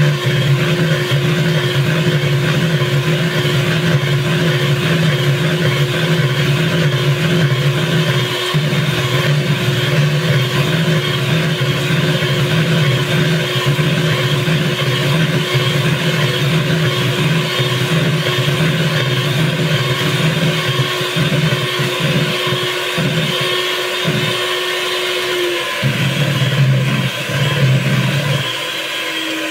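Electric hand mixer running steadily, its beaters whisking cake batter in a plastic bowl. The steady motor whine breaks off briefly near the end.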